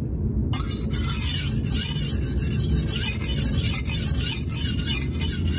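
Steel chef's knife being sharpened on a wet whetstone: the blade rasps across the stone in repeated strokes, starting about half a second in.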